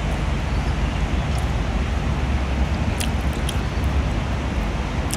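Steady low outdoor rumble, like distant traffic or wind on the microphone, with a few faint clicks scattered through it.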